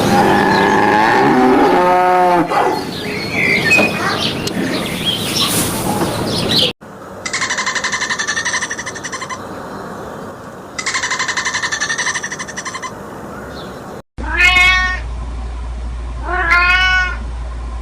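Domestic cats meowing across several spliced clips. There is one meow amid background noise about two seconds in, two buzzy, pulsing calls in the middle, and two clear, arching meows near the end.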